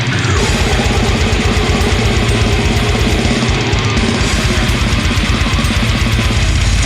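Heavy metal music: distorted electric guitars over fast, evenly driven drumming.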